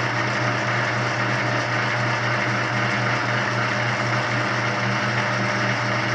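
Laguna 25-inch planer's motorized table-lift drive running steadily with a strong hum as it moves the table automatically up to a 4-inch setting; it shuts off right at the end.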